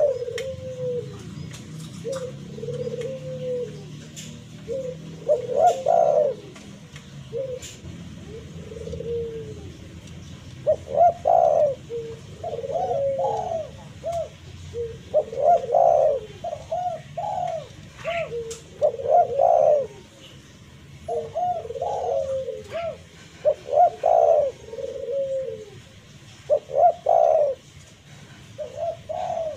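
Spotted dove (tekukur) cooing: short phrases of several low, curving coos, repeated every second or two. It is the territorial call used to lure and provoke a rival dove.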